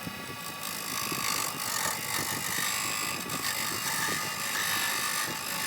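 Wood being cut by a hand-held chisel on a Wen benchtop lathe: the steady hum of the lathe motor under a scraping hiss of the tool on the spinning wood, which grows louder about half a second in.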